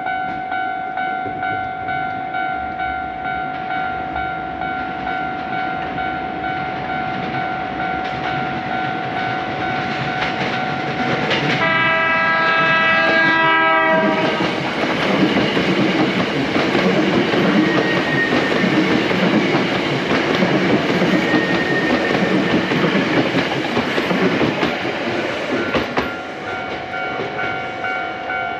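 Japanese level-crossing warning bell ringing in an even, repeating ding. About twelve seconds in, a train horn sounds for about two seconds, dropping in pitch at its end. A Hankyu 6300-series 'Kyo-train' then passes with the rumble and clickety-clack of its wheels for about twelve seconds, and the crossing bell is heard again near the end.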